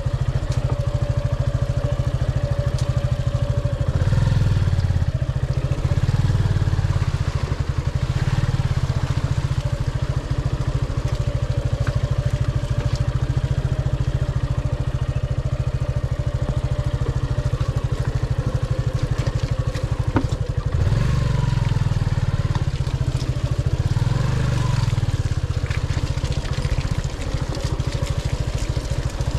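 Motorcycle engine running while riding, rising and falling with the throttle, with louder surges a few seconds in and again past the twenty-second mark.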